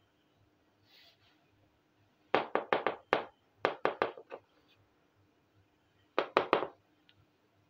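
A small plastic miniature kitchen toy tapped on a hard board surface: three quick runs of sharp knocks, four or five to a run.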